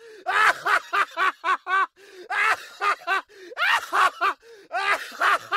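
A man laughing heartily, in bouts of quick, high-pitched 'ha-ha-ha' syllables broken by short breaths.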